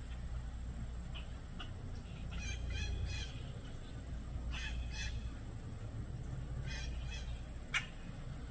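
Bird calls in three short bursts of quick repeated notes, over a steady low rumble, with one sharp click near the end.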